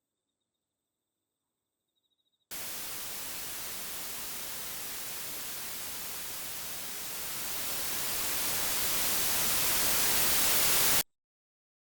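Near silence, then about two and a half seconds in, a burst of static hiss starts abruptly. It holds steady, swells louder and brighter over its last few seconds, and cuts off suddenly.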